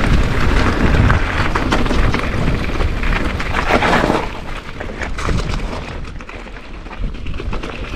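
Pole Evolink full-suspension mountain bike rolling down a rocky trail: tyres crunching over rock and gravel, with frequent clicks and rattles from the bike, under a heavy rumble of wind on the action camera's microphone. Louder for the first four seconds or so, then quieter as the bike slows.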